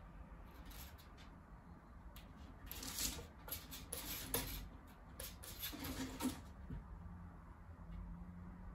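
A Burmese kitten's claws scratching and tapping on a wooden shelf unit as it stretches up and paws at the shelf above: a run of short scratches and taps, loudest in the middle, that stops about six seconds in.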